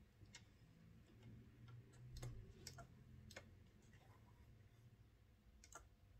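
Near silence with a handful of faint, irregularly spaced clicks and light handling noise as fabric is set back under the sewing machine's needle. The machine is not stitching.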